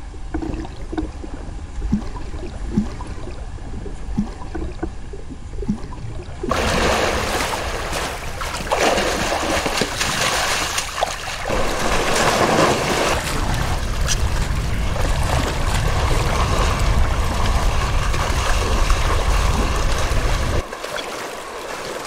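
Muffled underwater water sound with a few faint clicks, then about six seconds in a sudden change to loud splashing as a brown bear charges through shallow river water chasing salmon. The splashing comes in surges and eases off near the end.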